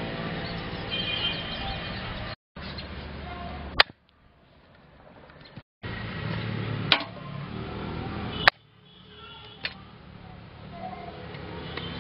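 Heavy kitchen knife chopping quail on a wooden chopping block: a few sharp, separate chops a second or more apart, over steady low background noise that cuts out briefly twice.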